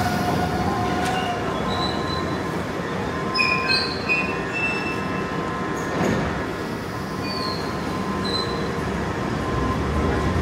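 London Underground tube train running with a steady rumble, its wheels giving short high-pitched squeals in two clusters, a few seconds in and again near the end.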